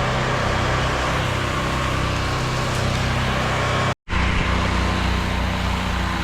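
Pressure washer engine running steadily under the hiss of a high-pressure water spray. The sound cuts out for an instant about four seconds in, then resumes.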